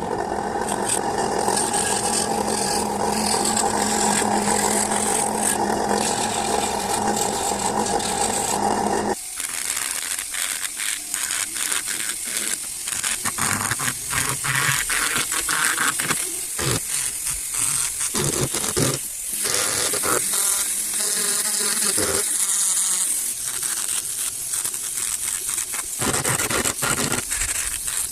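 Small electric woodworking tools working on wood. A steady motor hum for about the first nine seconds, then an abrupt change to irregular scraping and grinding with many short rough strokes.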